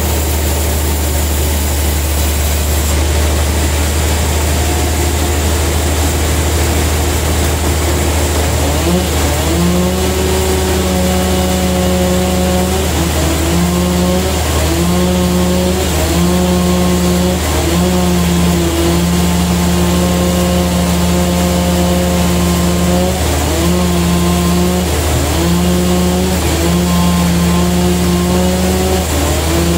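Large vertical band sawmill running with a steady deep hum. From about nine seconds in, a whining tone rises and holds in repeated stretches, breaking off and coming back, as the blade saws through a huge trembesi (rain tree) log.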